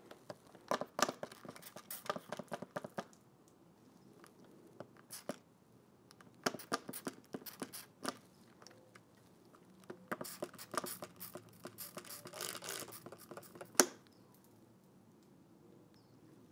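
Trigger spray bottle squirting glass cleaner onto a brass air hose fitting in three runs of quick sprays, with a sharp click near the end. The fitting is being soap-tested for air leaks.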